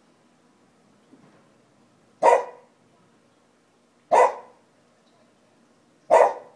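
Shiba Inu barking three times: single sharp barks spaced about two seconds apart.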